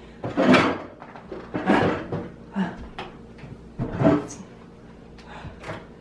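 A man's short grunts and strained noises of effort, four or five of them over the first four seconds, mixed with a few knocks and clunks as he carries a heavy microwave oven.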